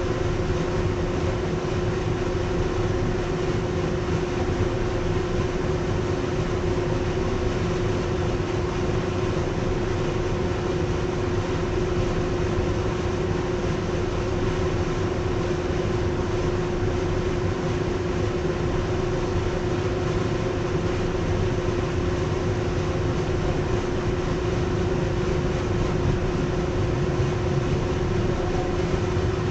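R62A subway train running steadily at speed, heard from inside the front car: an even rumble of wheels on rail with a constant steady hum.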